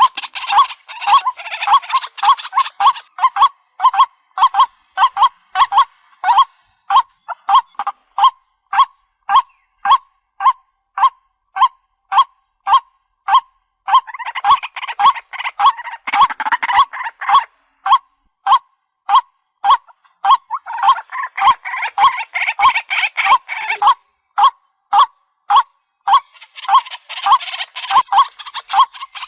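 Waterhen calls: a loud honking note repeated evenly about twice a second, with several stretches of a few seconds each where denser, raspier calling joins in.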